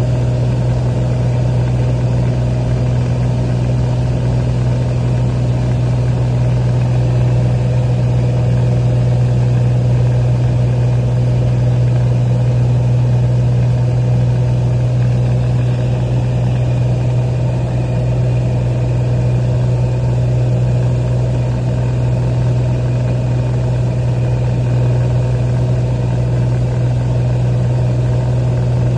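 Cessna 182P's six-cylinder Continental O-470 engine and propeller running steadily in flight, heard from inside the cabin as an even, unchanging low hum.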